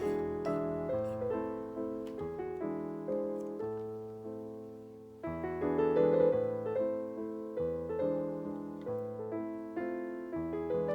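Background piano music: gentle chords and melody notes struck and left to ring, with a louder chord about five seconds in.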